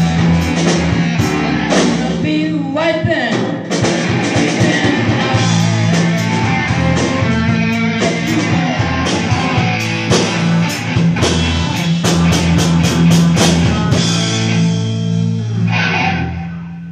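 Live rock band playing: electric guitar, bass, drums and keyboard, with a voice singing. The music stops shortly before the end.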